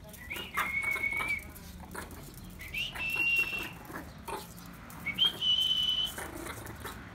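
Three high whistled tones about two seconds apart, each sliding up and then held for most of a second, each a little higher in pitch than the last, with light scuffling and clicks between them.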